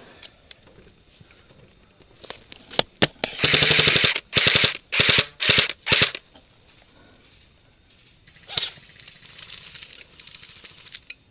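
Airsoft gun firing on full auto: several rapid bursts in quick succession about three seconds in, after a few scattered single shots.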